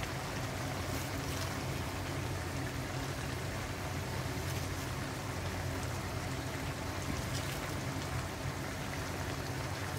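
Vegetable stew simmering in a pan on the stove: a steady low noise of cooking with a few faint pops.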